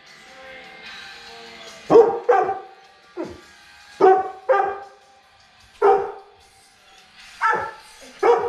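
Large dog barking repeatedly: about eight loud barks at irregular intervals, starting about two seconds in.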